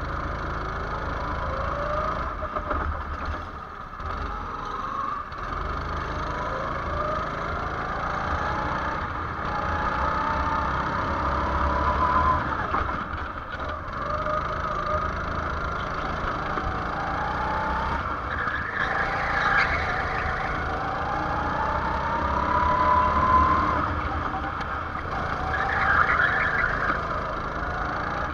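Go-kart engine heard onboard, rising in pitch again and again as the kart accelerates and dropping back as the driver lifts off for the corners.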